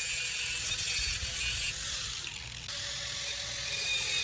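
Welding on steel brackets: a steady crackling hiss that changes abruptly a few times.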